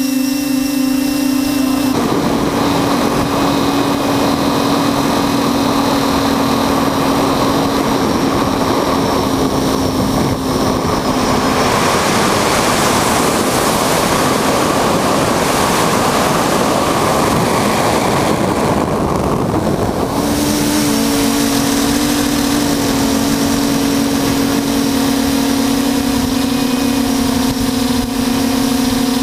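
Radio-controlled tricopter's electric motors and propellers whining steadily, heard from its onboard camera under a strong rush of wind noise. About twelve seconds in, the motor tone drops away for about eight seconds, leaving only the rushing air, then comes back.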